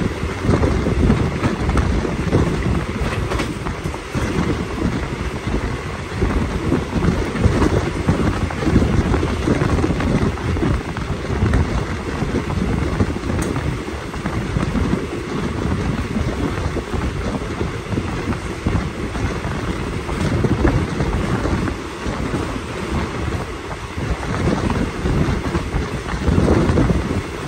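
Wind buffeting the microphone at the open window of a moving passenger train coach, over the coach's low running rumble on the rails; a steady, loud rush that swells and dips.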